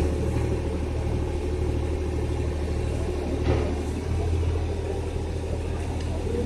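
Diesel engines of heavy lifting machinery running steadily with a low rumble, their note shifting slightly about four seconds in. There is one brief knock about three and a half seconds in.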